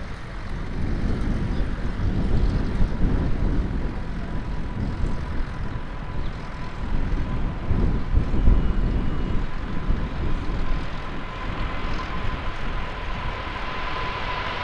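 A Boeing 777 freighter's twin GE90 turbofans at takeoff power during its takeoff roll: a deep, continuous rumble with a steady fan whine that grows louder as the jet accelerates toward the listener, and rising hiss near the end as it draws close.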